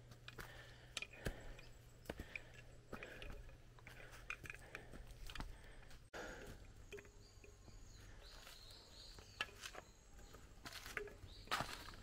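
Quiet jungle ambience: scattered small clicks and snaps with short, faint animal calls over a low steady hum. It breaks off briefly about six seconds in.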